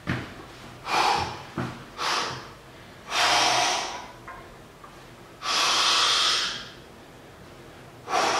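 A man breathing hard and forcefully while curling a heavy barbell: a few short puffs, then two longer breaths about three and five and a half seconds in, and another puff near the end, the sound of strain during a near-maximal strict curl set.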